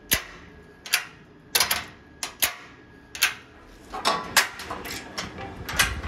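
Irregular sharp metal clacks and knocks, about ten in six seconds, some ringing briefly, from hands-on work at an electronic lock fitted to an iron gate.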